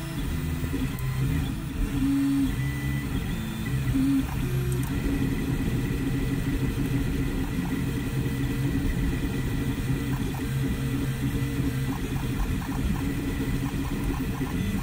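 FDM 3D printer printing: the stepper motors hum in low tones that jump to new pitches every fraction of a second as the print head moves back and forth laying down the part, over the steady whir of the cooling fans.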